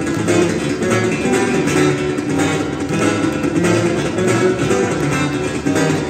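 Acoustic guitar played as an instrumental, a busy run of fast strummed and plucked notes with a percussive attack.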